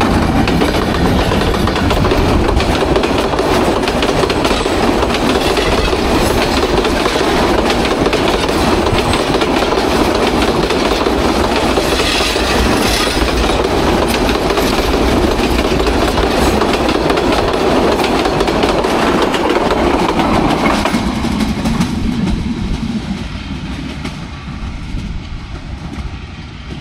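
Diesel locomotive and passenger coaches of an express train passing close by at speed, with a loud, dense clatter of wheels over the rail joints. About 21 seconds in the noise drops off and fades as the train moves away.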